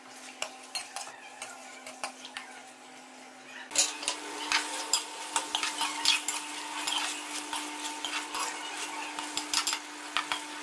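Steel ladle clinking and scraping against a metal karahi as chicken pieces are stirred and fried in hot oil, with a light sizzle under the irregular clinks. The clinks get busier and louder from about four seconds in.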